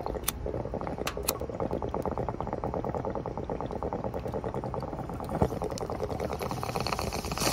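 Glass bong water bubbling rapidly and steadily as smoke is drawn through it in one long inhale. A few sharp clicks come early in the first second and a half, and a hissier rush of air comes in near the end.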